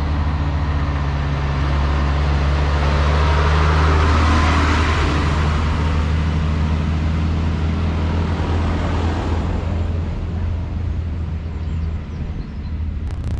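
A tractor's engine running as it drives past close by, its low hum and noise swelling to loudest about four seconds in and then fading, followed by a car passing with engine and tyre noise.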